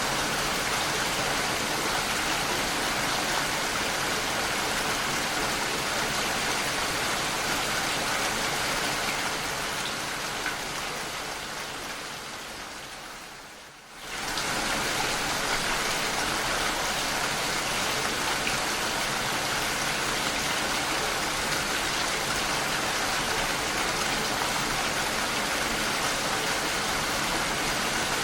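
Steady rain falling. About nine seconds in it fades gradually quieter, then comes back at full level suddenly about fourteen seconds in.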